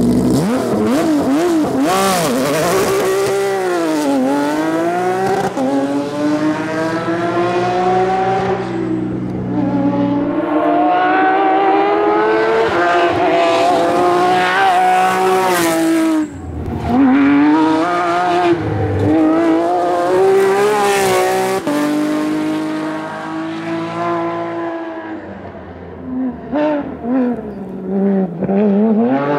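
Porsche 997 GT3 rally car's flat-six engine at full throttle, its pitch climbing through the revs and dropping at each gear change or lift. In the last few seconds it comes in short, choppy bursts.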